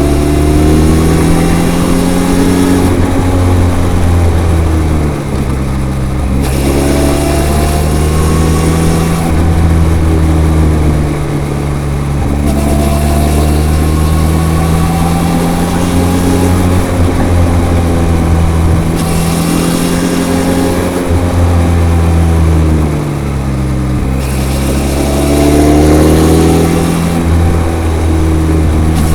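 Benelli TRK 502's parallel-twin engine through its stock exhaust, under way on the road: the revs fall and climb again several times as the rider rolls off and opens the throttle, with wind hiss that swells and fades.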